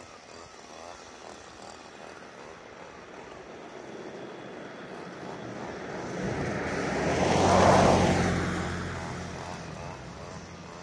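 Gas string trimmer running steadily, growing louder over several seconds as it comes close, loudest about eight seconds in, then fading as it moves away.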